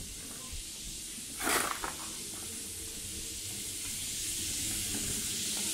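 Outdoor alley ambience: a steady high hiss that grows a little louder toward the end, with one short loud scrape about a second and a half in, followed by a couple of faint knocks.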